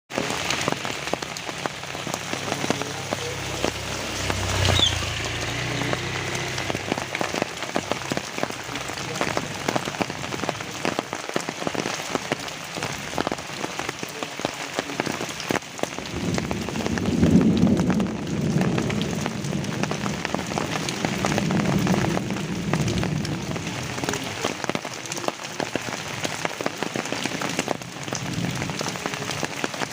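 Steady rain falling on trees, a dense patter of drops on leaves. A low rumble swells about seventeen seconds in and again a few seconds later, with a shorter one near the start.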